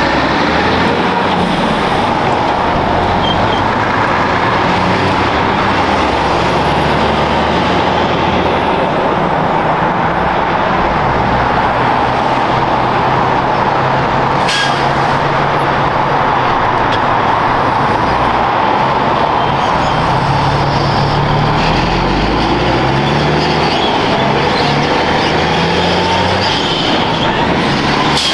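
Heavy diesel trucks passing close by and pulling through an intersection: engines running and a steady wash of tyre and road noise, with one brief sharp sound about halfway through.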